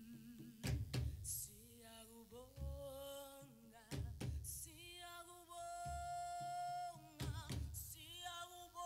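A solo voice singing long held notes with a wavering vibrato, in slow phrases with little or no accompaniment, broken by a few sharp thumps between phrases.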